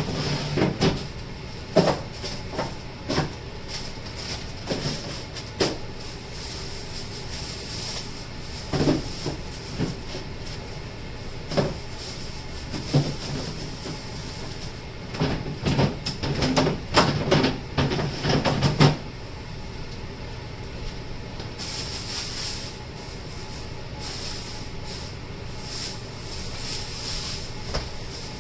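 Produce being put away in a refrigerator: scattered knocks and clunks of items being set down and moved, with a dense run of knocks a little past halfway and stretches of rustling plastic.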